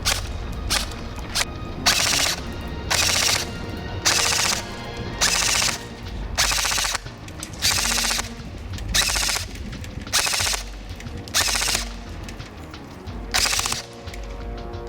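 WE SCAR-H SSR airsoft rifle shooting: a few single shots at first, then about ten short full-auto bursts.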